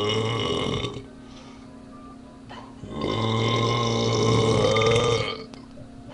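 A man belching twice, long and drawn out: one burp at the start lasting about a second, then a longer one from about three seconds in lasting over two seconds.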